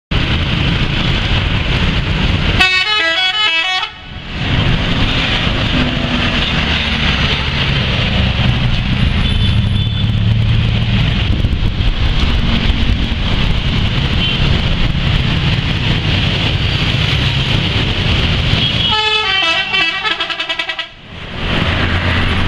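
Indonesian bus 'telolet' multi-tone musical horn playing a quick run of alternating notes twice: a short burst about three seconds in and a longer one near the end. Between the bursts there is steady, loud vehicle and traffic noise with a deep rumble.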